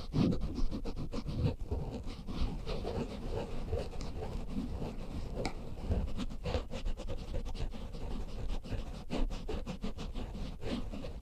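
Microphone being scratched and rubbed directly for ASMR, a quick, irregular run of short scratching strokes with sharper clicks among them.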